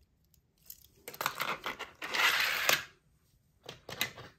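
Handling noise: a run of small clicks and knocks, with a short rustle about two seconds in and a few more clicks near the end.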